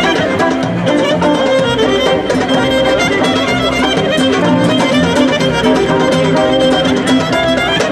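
Greek folk dance music played live by a band, a violin leading the tune over a steady beat.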